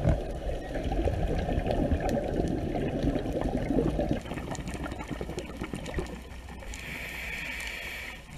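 Scuba divers' exhaled air bubbling and rushing, recorded underwater; the bubbling eases off about halfway through.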